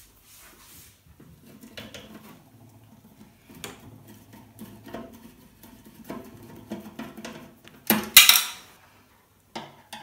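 Screwdriver working at the screws that hold a microwave oven's magnetron: light metallic clicks and scrapes against the steel chassis, with a louder metal clatter about eight seconds in.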